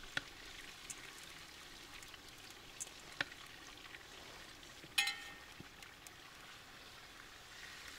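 Faint steady sizzling of food frying in a kazan, with a few light ticks and one sharper clink about five seconds in.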